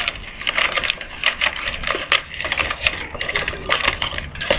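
Sheet of paper crinkling and rustling in quick, irregular crackles as it is folded and a flap is tucked into a slot by hand.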